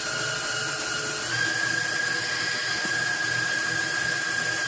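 Electric stand mixer with a wire whip running at high speed, beating whipped eggs for a sponge cake to mix in coffee extract. A steady motor whine that steps up slightly in pitch about a second in.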